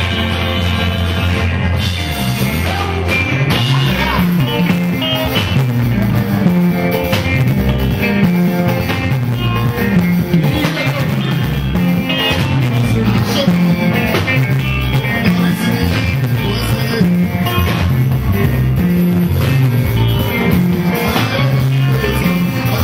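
Live band music: electric guitars over a bass line and drum kit keeping a steady dance beat, with singing.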